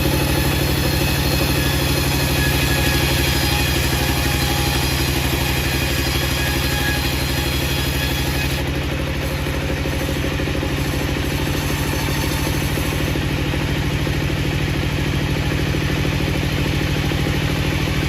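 Engine running steadily at a constant speed, with an even low drone and a slight shift in the higher hiss a little past halfway.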